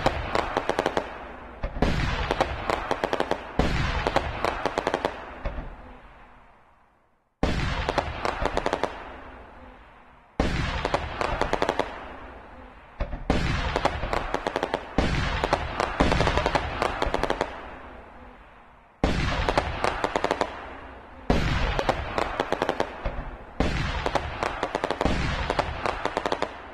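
Fireworks going off one after another, about ten bursts, each opening suddenly and trailing into a dense crackle that fades over a couple of seconds. There is a short silence about a quarter of the way through.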